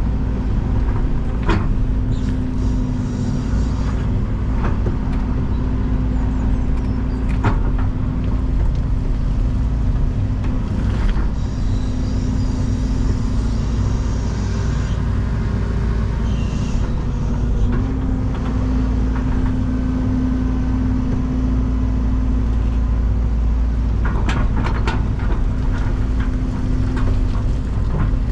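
Excavator's diesel engine running steadily under work, with occasional sharp knocks and clanks, several in quick succession near the end.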